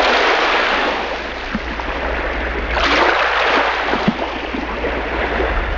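Ocean surf sound effect: a steady rush of breaking waves that swells about three seconds in.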